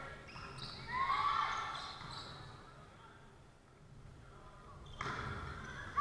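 Volleyball rally in a gymnasium: the ball is struck and bounces with an echo, and players give short shouted calls. A sharp smack comes about five seconds in.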